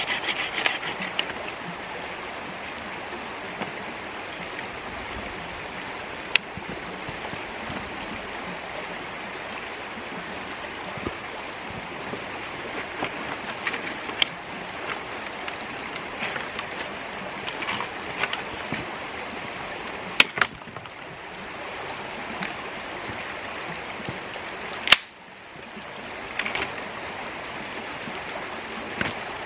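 Creek water flowing steadily over stones. A folding pruning saw cuts through a branch in the first second or so, and scattered cracks and snaps of branches being handled and broken follow, one loud crack standing out late on.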